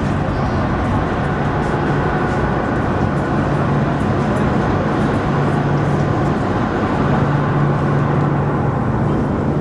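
A steady, loud mechanical drone with a low hum, continuous and unbroken.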